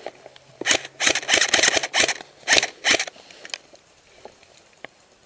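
Airsoft electric guns firing several bursts of rapid shots packed into about two seconds, starting under a second in; the longest burst lasts almost a second.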